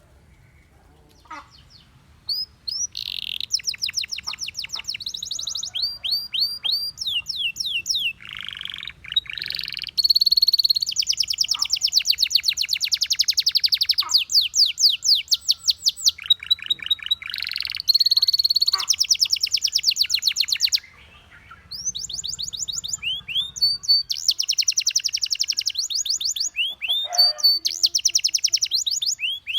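Domestic canary singing in rolling phrases: fast trills of repeated high notes, some sweeping down in pitch, broken by a short pause at the start and another about two-thirds of the way through.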